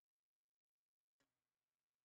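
Near silence, with one faint tap about a second in.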